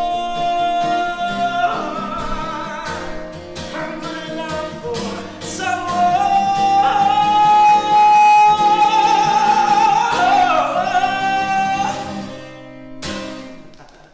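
Closing bars of a musical theatre song: a singer holds long, high notes over instrumental accompaniment, with the music fading out near the end.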